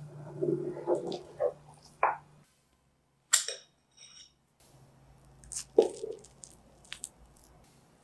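Metal cake server pressing and sliding through soft tiramisu, with soft squishing and scraping; about three seconds in, a single sharp clink with a short ring as it meets the ceramic plate. In the second half, a few light clicks and soft squelches as a fork presses into the cake on the plate.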